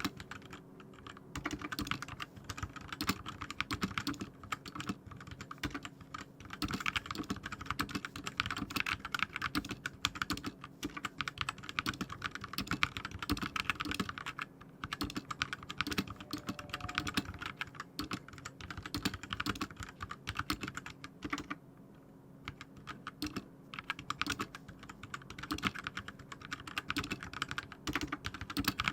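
Typing sound test on an RK61 mechanical keyboard with linear red switches and HyperX double-shot PBT keycaps: a fast, steady stream of keystroke clacks, with a couple of brief pauses.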